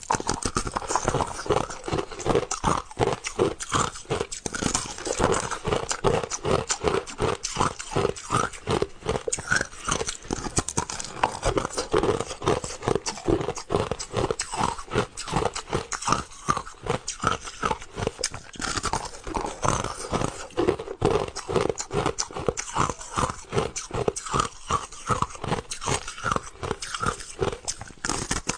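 Close-miked crunching of crushed ice being chewed: rapid, crisp crunches several times a second without a break.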